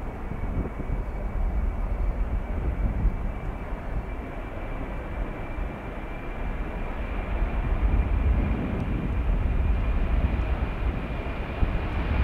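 Boeing 737 jet engines running as the airliner rolls along the runway: a steady rumble with a thin high whine over it, growing louder near the end as the jet comes closer.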